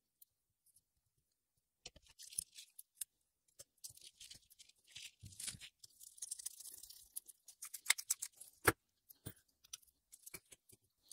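Water-pump pliers and a screwdriver working on the bare Valvetronic assembly of a BMW N42 engine, fitting the intermediate-lever torsion springs: scattered metallic clicks and scraping, with a few sharper clicks about eight to nine seconds in.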